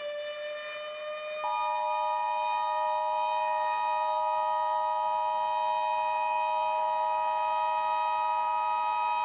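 Emergency Alert System attention signal, a steady two-tone beep, cutting in about a second and a half in. Under it a civil defense siren wails on a held tone that rises slowly in pitch.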